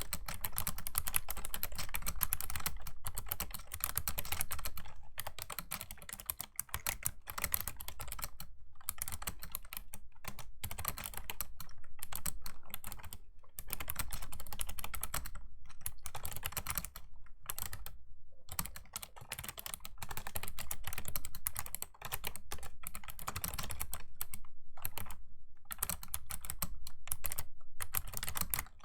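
Fast continuous typing on a Razer Ornata Chroma V2 mecha-membrane keyboard, a dense run of clicky keystrokes broken by several brief pauses.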